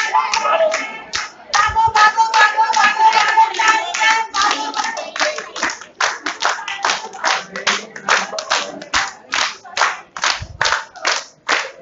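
A group clapping hands in a steady rhythm, about three claps a second, while singing together. The singing fades after about four seconds and the clapping carries on.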